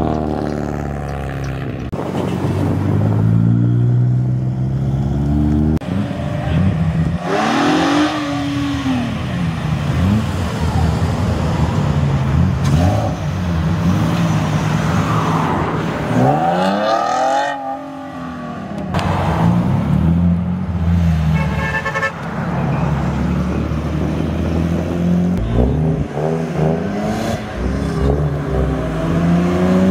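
Several modified sports cars driving past one after another, their engines revving as they pull away, the pitch of each rising and falling as it passes.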